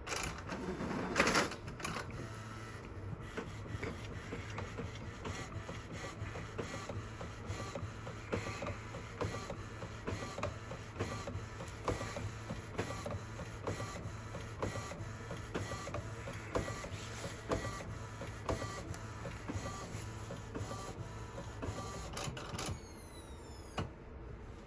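Epson EcoTank ET-8550 inkjet printer starting up with a weird mechanical noise: a loud clunk about a second in, then a steady hum under a long, even run of clicks and knocks. The hum stops near the end and a few short rising whirs follow. This is the start-up noise that comes with the printer's error 000021.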